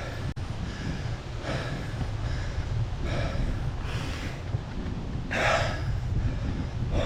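Hard, laboured breathing of a cyclist pedalling up a steep climb, a heavy breath about every second, the loudest about five and a half seconds in. A steady low rumble runs underneath.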